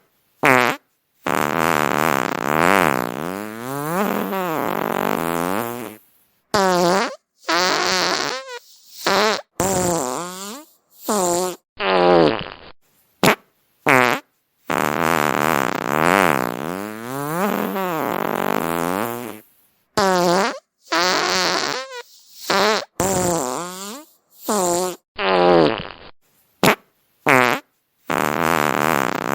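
A run of about twenty fart sounds one after another with short gaps between them. Most are short, two are long, and the pitch wavers and bends within each one.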